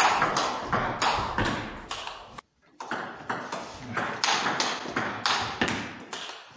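Table tennis rally: the ball clicking off the paddles and the table in a quick, even rhythm of about three hits a second, with a short break about two and a half seconds in.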